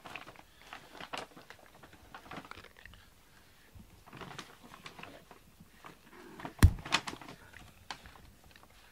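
A brush being stroked through a cat's fur, giving short, irregular scratchy strokes, with one loud thump about two-thirds of the way through.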